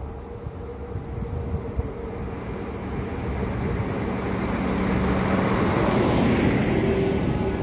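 SNCF X 73500 diesel railcar arriving at the station, its engine and wheels on the rails growing steadily louder as it draws near and passes. A thin high whine strengthens near the end.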